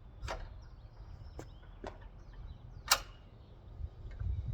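Sharp metal clicks from a miter saw stand being released and raised: four separate clicks, the loudest about three seconds in, over a low handling rumble.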